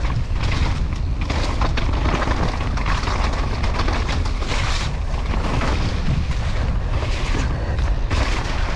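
Wind buffeting an action camera's microphone at speed, a heavy continuous rumble, with tyre noise and rapid clattering rattles from a mountain bike riding down a wet dirt trail.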